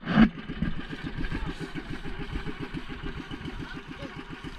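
Small boat engine idling with a steady, rapid putter, with one sharp thump just after the start.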